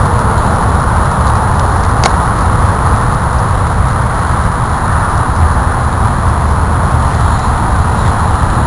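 Steady low rumble of wind buffeting the camera's microphone, with a single sharp click about two seconds in.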